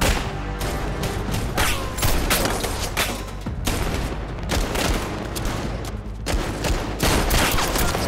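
Gunfight: a rapid exchange of pistol shots, roughly two a second, each with an echoing report, over tense dramatic music.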